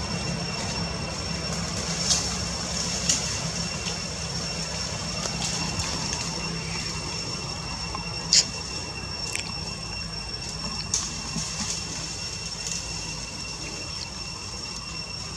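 Outdoor ambience: a low steady rumble with a steady high-pitched whine over it, and several short sharp clicks, the loudest about eight seconds in.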